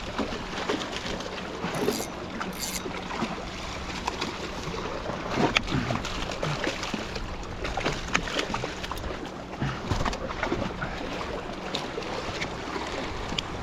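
Seawater sloshing and splashing at the jetty, with scattered small knocks and clicks.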